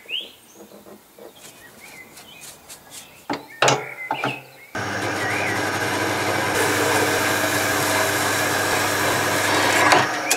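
A few light clicks and knocks, then a horizontal metal-cutting bandsaw starts suddenly a little before halfway and runs with a steady motor hum. About two seconds later a higher hiss joins as the blade cuts into a round aluminium bar. The sound cuts off near the end, and birds chirp faintly in the background.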